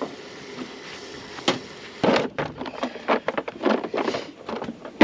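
Hand tools and metal parts knocking and clattering during repair work on a combine header: one sharp knock about a second and a half in, then a quick irregular run of knocks and clanks from about two seconds on.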